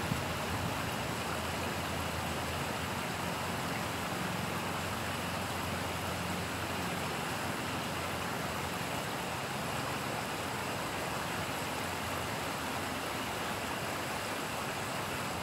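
River water spilling over a low weir, a steady, even rushing noise.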